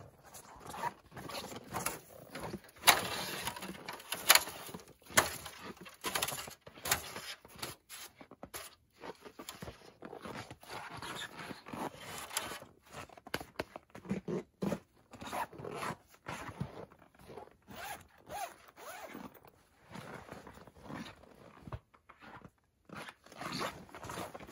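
Footsteps crunching in snow and winter clothing rustling as a stepladder is carried and set up. A few louder sharp knocks come a few seconds in.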